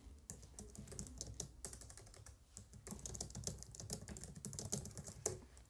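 Typing on a computer keyboard: a quick, irregular run of faint key clicks that stops just before the end.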